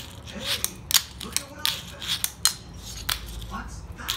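A 34mm Teak Tuning wooden fingerboard being ridden and flicked through tricks: a string of sharp, irregular clicks and clacks as its tail pops and its trucks and wheels knock down.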